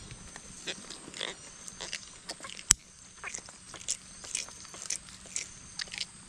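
Short rustles and clicks of a caught fish being handled and unhooked with metal fishing pliers over dry palm fronds, with one sharp click about two and a half seconds in.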